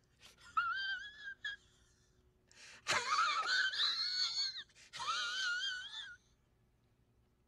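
High-pitched wavering wails from a person's voice, three in a row, each about a second long. A sharp crack comes just before the second, longest one.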